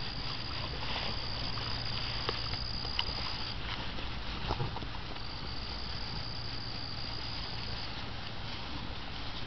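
An insect's high, steady trill runs for about three and a half seconds, breaks off, and starts again about five seconds in for under three more seconds. Beneath it are light rustling and scattered small clicks from puppies scuffling in the grass.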